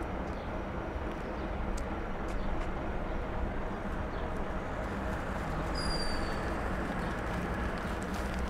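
Steady low rumble of city street traffic, with a bus standing close by. A short high squeal sounds about six seconds in.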